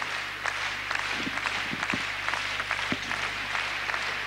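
Spectators applauding: many hands clapping densely. A low steady hum runs underneath.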